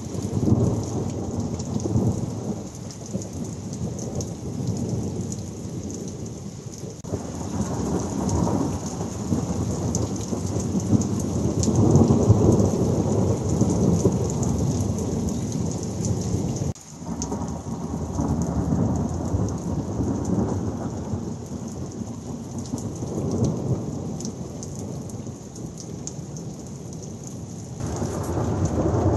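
Thunderstorm: a heavy downpour hissing steadily while long rolling thunder rumbles swell and fade, loudest about twelve seconds in and again near the end. The sound breaks off abruptly about seven and seventeen seconds in.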